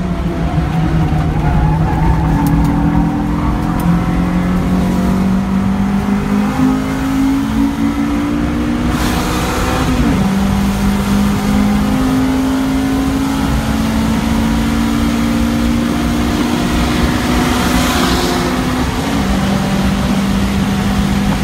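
A 2000 Acura Integra GS-R's 1.8-litre DOHC VTEC four-cylinder, heard from inside the cabin, pulls under full throttle with its pitch climbing steadily. It drops sharply at an upshift about halfway through and again near the end, then holds steady. Road and wind noise run underneath throughout.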